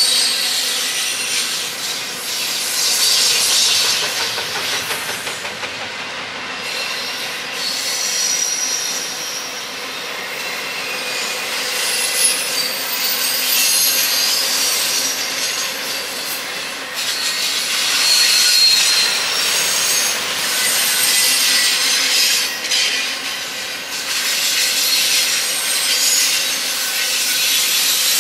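Double-stack intermodal freight train rolling past: steel wheels running on the rails with a steady rush, and short high-pitched wheel squeals that come and go.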